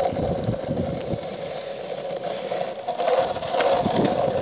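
Longboard wheels rolling over rough, cracked asphalt: a steady rolling drone with a few small knocks.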